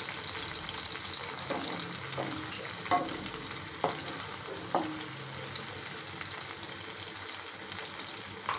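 Chopped capsicum, garlic and chillies sizzling steadily in hot oil in a pan. Between about one and a half and five seconds in, the stirring spatula scrapes and knocks on the pan five times.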